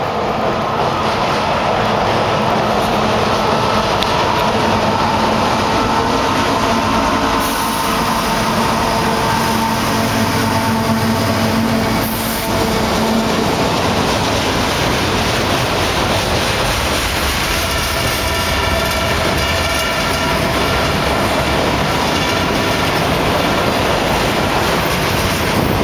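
Freight train crossing a steel girder bridge overhead, loud and continuous. The diesel locomotives pass with their engines running, their steady low drone fading about halfway through. Double-stack container cars then roll over the bridge with steady wheel and rail noise, and thin steady high squealing tones join in from about two-thirds of the way in.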